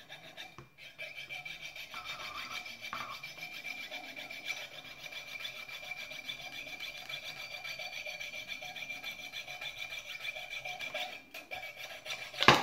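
Fine-bladed piercing saw cutting through a brass-coated steel nail held in locking pliers, with rapid, steady back-and-forth strokes and a high ringing from the blade. A sharp click near the end.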